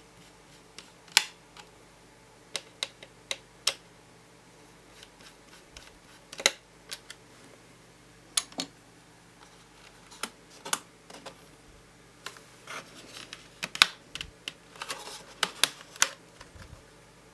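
Irregular sharp clicks and taps of hard plastic laptop parts being handled as the RAM bay of a Lenovo W530 is opened and RAM modules are readied for fitting. The clicks come closer together near the end.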